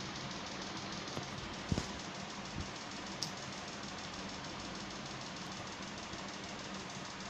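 Steady background hiss with a low hum, and a few faint clicks in the first few seconds.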